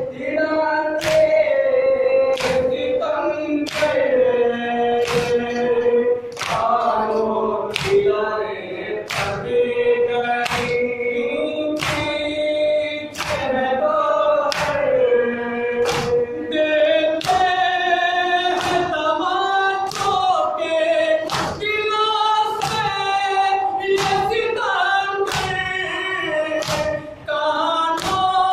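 A group of men chanting a nauha, a Shia Muharram lament, in chorus with held, sliding notes. Rhythmic matam runs through it, with open hands slapping chests together about once every 0.8 s in time with the chant.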